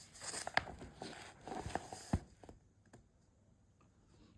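Paper rustling with a few light clicks, like pages of a book being turned, for about the first two and a half seconds, then quiet room tone.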